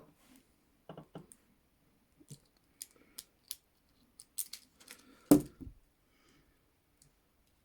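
Hinged steel handcuffs being unlocked in a hurry with a handcuff key: scattered metallic clicks and rattles of the key and cuff parts, with a louder thump about five seconds in.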